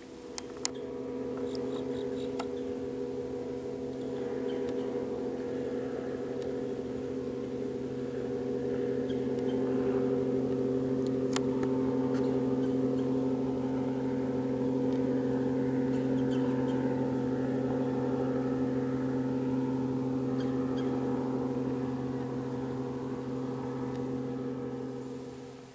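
Small motorboat's engine droning at a steady pitch out on the lake, growing a little louder toward the middle. A few sharp clicks come near the start.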